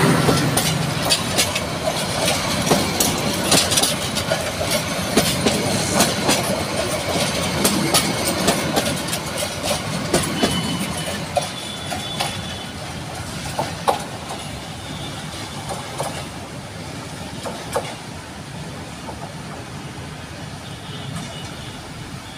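Bangladesh Railway intercity passenger train's coaches rolling past close by, wheels clicking over the rail joints. The clatter thins and fades as the last coach rolls away.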